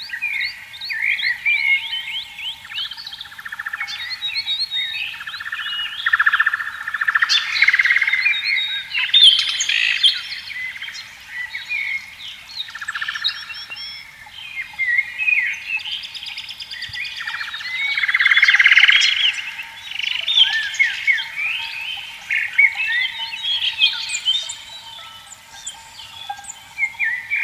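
A dawn-chorus-like mix of many birds chirping and twittering, overlapping throughout, with several buzzy pulsed trills of a second or two each.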